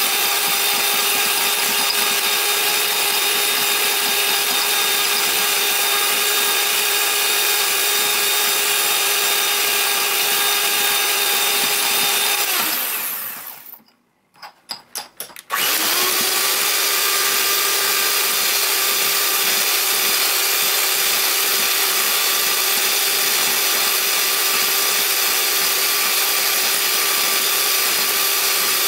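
Electric hand mixer running steadily, its twin beaters whipping instant coffee, sugar and hot water into dalgona foam in a glass bowl. About halfway through, the motor winds down and stops for about two seconds, with a few brief clicks. Then it spins back up and runs steadily again.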